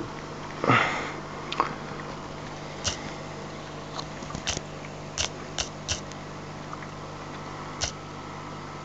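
Aquarium equipment humming steadily, with a brushing sound about a second in and about a dozen sharp clicks scattered through it.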